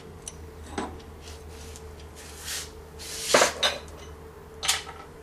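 A few sharp metal clinks and clanks as a machine handwheel is pulled off its shaft and set down, the loudest about three and a half seconds in.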